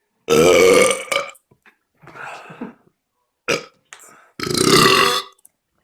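A man burping: two long, loud belches about four seconds apart, each lasting about a second, with a shorter, quieter sound between them.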